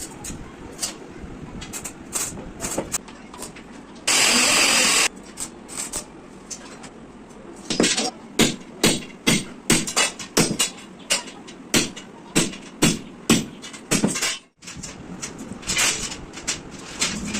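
Repeated sharp strikes on metal, about two to three a second for several seconds, like hammering on a steel frame during fabrication. Scattered knocks come before them, and a short hissing burst lasts about a second.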